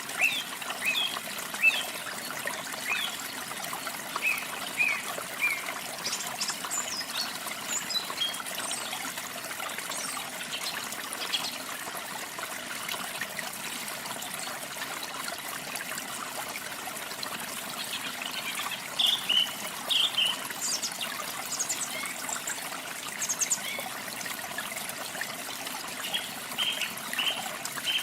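Small waterfall with water splashing and trickling steadily, and songbirds chirping in short, high phrases that come in bursts over it.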